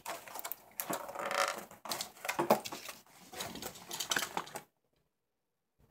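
Cardboard being worked by hand: irregular scratchy rustling and crunching in short bursts, which stops about a second before the end.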